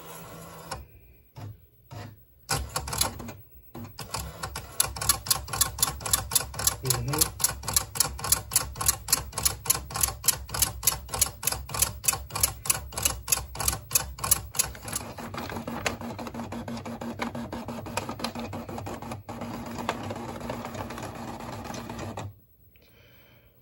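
Commodore 1526 (MPS-802) eight-pin dot-matrix printer printing a GEOS graphics page. It runs as a fast, regular chatter of about four strokes a second, turns into a steadier buzz about two thirds of the way through, and stops shortly before the end.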